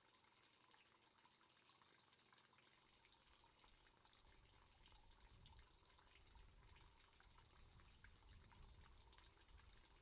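Near silence: faint trickling and dripping of pond water, many tiny drips over a soft hiss, with a low rumble coming in about three seconds in.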